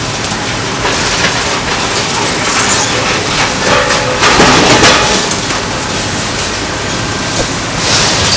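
Heavy demolition machinery running amid clanking and crashing of breaking bridge structure, loudest about four to five seconds in.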